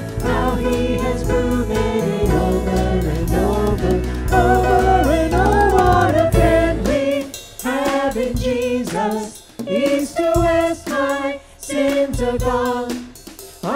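Choir singing a hymn. A low accompaniment under the voices drops out about halfway, leaving the singers unaccompanied in short phrases with brief pauses between them.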